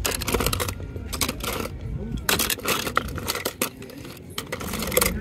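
Small die-cast metal toy cars clinking and clattering against each other as they are rummaged through, a rapid series of light metallic clicks.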